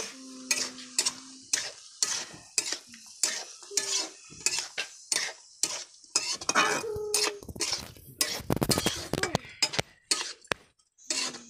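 Metal spatula scraping and clanking against a metal kadai as ivy gourd is stirred and fried in it, in irregular strokes with a quick flurry of scrapes about eight seconds in. A light frying sizzle in the first couple of seconds.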